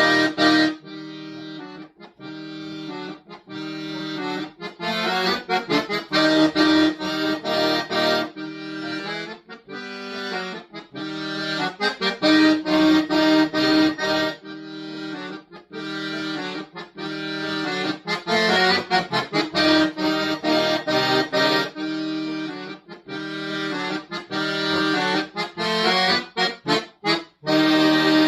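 Solo accordion playing a concert piece: loud, short, clipped chords alternate with softer held passages.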